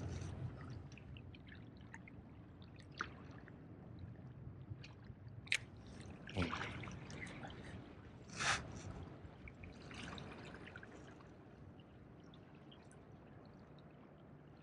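Small waves lapping and trickling among jetty rocks, with a few short clicks scattered through it.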